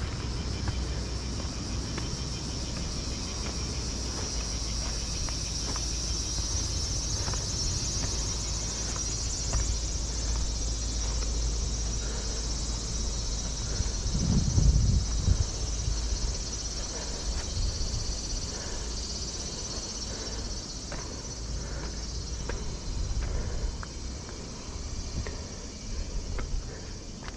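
Steady high-pitched chorus of summer insects, swelling a little in the middle, over scattered taps of footsteps and a low rumble, with a brief louder low rumble about halfway through.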